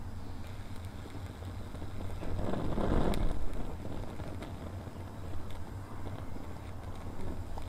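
Breeze buffeting the microphone as a steady low rumble, rising in a gust between about two and three and a half seconds in.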